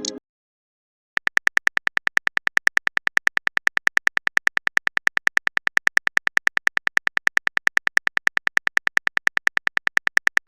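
Phone keyboard typing sound effect: a steady run of rapid identical clicks, about eight a second, starting about a second in.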